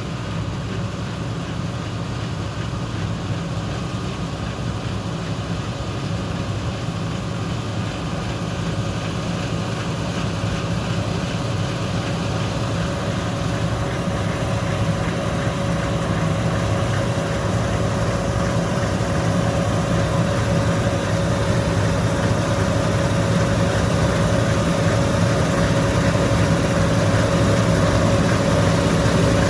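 Large farm machinery running steadily at harvest, a deep engine note with a steady higher hum over it, growing gradually louder.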